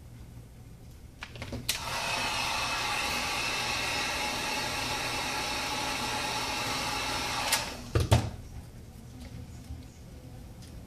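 Wagner heat gun switched on with a click and running steadily for about six seconds with a fan whine, heating the phone's front glass to soften the adhesive, then switched off with a click, followed by a couple of knocks.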